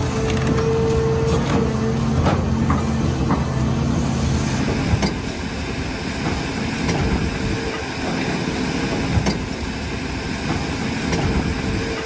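A large machine's engine running steadily, with scattered knocks and clanks; the engine tone drops back into a rougher, noisier rumble about four seconds in.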